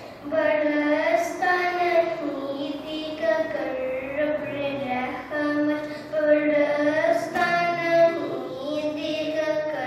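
A young boy singing a naat, an Urdu devotional poem in praise of the Prophet, solo and unaccompanied into a microphone, in long held, gently wavering notes broken by short pauses for breath.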